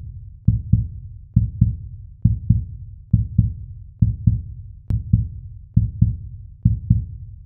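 Heartbeat sound effect: deep paired thumps, lub-dub, repeating a little faster than once a second, each pair fading out before the next.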